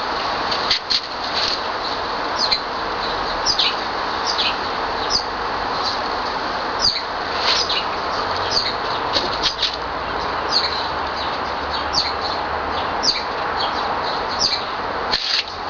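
Small birds chirping, short high calls repeating every second or so over a steady background hiss.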